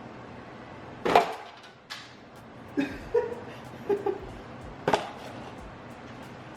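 Bottles and jars being taken out of a refrigerator and set down: a sharp knock about a second in, then a few lighter clinks and knocks, some with a brief ringing note.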